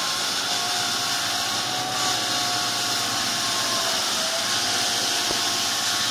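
Floor sanding machine running steadily on a wooden deck: a constant hiss of abrasive on the boards with a faint steady motor whine.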